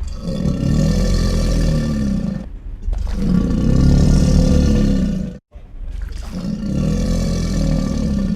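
Alligator growling: three long, deep growls of about two and a half seconds each, with short pauses between them.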